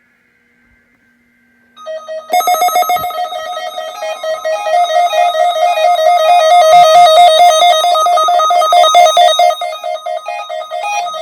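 Weather radio receiver sounding its alert, triggered by the weekly test signal from the NOAA Weather Radio station. Faint high data tones come first, then about two seconds in a loud, rapidly warbling electronic beep pattern starts and keeps going.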